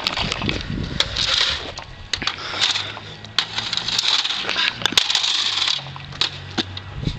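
A baseball bat hitting and knocking an Xbox 360 console about on asphalt: a series of sharp knocks and clatters, several seconds apart, some close together.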